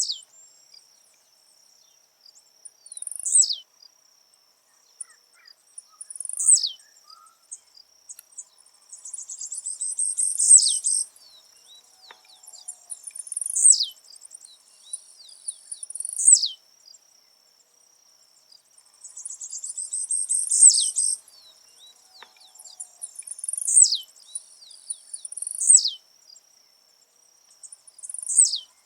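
Blue-black grassquit (tiziu) singing over and over, about every three seconds: a short high phrase, sometimes led by a rapid rattle, ending in a sharp falling note. A steady high insect drone runs underneath.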